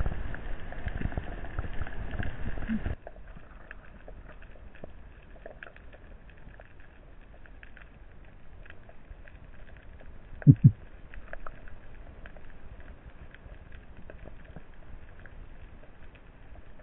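Underwater ambience: a muffled rushing noise with crackle for about the first three seconds, which cuts off abruptly, then a quieter hiss scattered with faint clicks. A short, low double thump comes about ten and a half seconds in.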